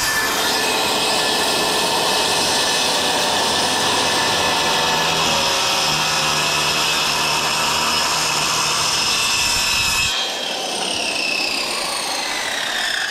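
Handheld corded circular saw running and cutting through a 2x8 board, a loud steady sawing. About ten seconds in the cut ends and the saw's whine falls away as the blade spins down.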